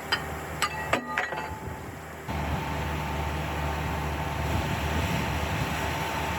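Several sharp metallic clinks with short ringing, then, about two seconds in, a steady machine noise with a constant whine and low rumble starts abruptly and runs on.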